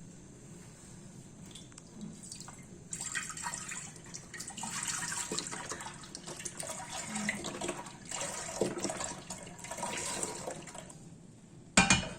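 Liquid splashing and trickling for several seconds, with a short loud knock near the end.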